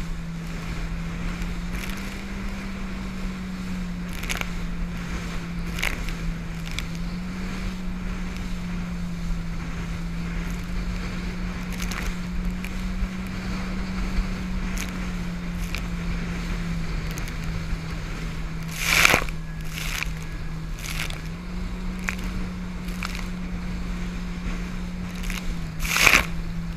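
Jet ski engine running at speed, a steady drone that steps up and down in pitch every few seconds as the throttle changes. Spray and water slap against the camera in short bursts, loudest about 19 seconds in and near the end.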